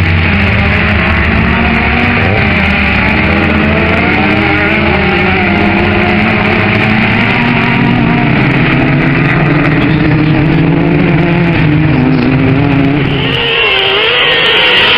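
Several racing car engines running and revving together, their pitches rising and falling. Near the end the deep engine sound drops away and a higher engine note takes over.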